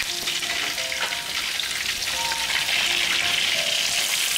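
Pieces of meat sizzling in hot oil in a steel wok: a steady frying hiss.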